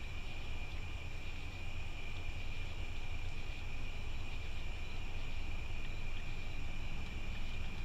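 Outdoor night ambience: a steady, unbroken high insect trill, over a low rumble.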